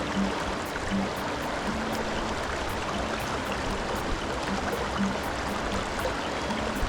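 Shallow mountain stream rushing over rocks, with background music of short low notes and a light regular tick laid over it.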